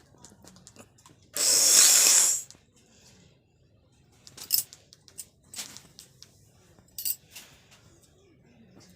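A single loud sneeze lasting about a second, about a second and a half in, followed by several short, sharp clicks.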